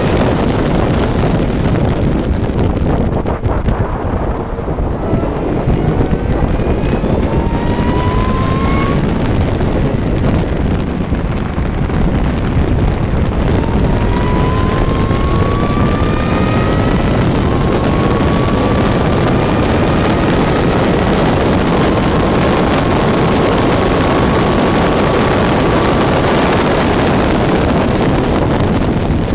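Race vehicle's engine heard onboard at speed, its pitch climbing and dropping back several times as it shifts up through the gears, under heavy wind rush on the microphone.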